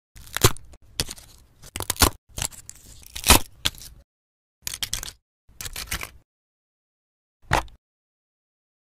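A shiny disc being broken up and crumpled by hand: a series of separate sharp cracks and crinkling, tearing crackles, with short pauses between them.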